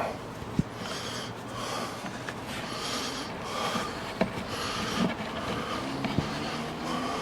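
Cat tree pad being worked onto its platform: fabric rustling and rubbing in uneven bursts, with a few sharp knocks.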